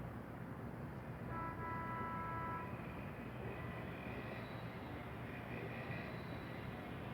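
Steady low rumble of distant vehicle noise, with a single held pitched tone about a second in that lasts about a second and a half, and faint high thin sounds later on.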